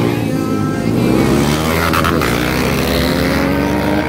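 Racing motorcycle engines revving hard on a street circuit, the pitch climbing and dropping as the riders accelerate and shift, with a louder swell about two seconds in.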